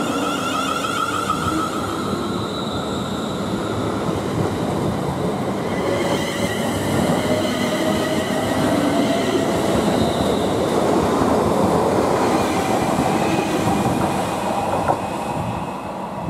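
Abellio Greater Anglia Class 360 electric multiple unit moving off along the platform, its wheels rumbling and rattling on the track. Its traction motors whine, climbing in pitch as it picks up speed.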